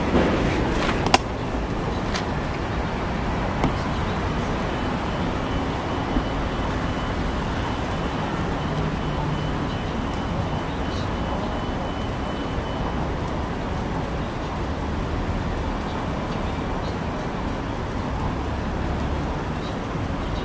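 Steady city street traffic noise, vehicles running on a rain-wet road, with a sharp knock about a second in.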